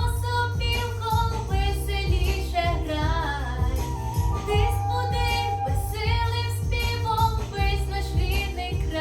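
A teenage girl singing a pop song over a backing track with a steady beat.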